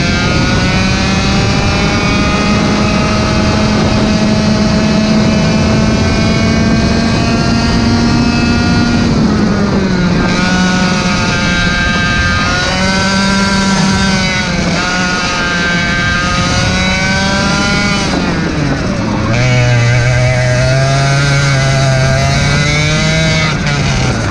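Racing kart engine heard from on board under hard acceleration, its pitch climbing steadily for about nine seconds, then falling back and rising again several times as the kart slows for and powers out of corners, with a deeper dip shortly before it picks up again near the end.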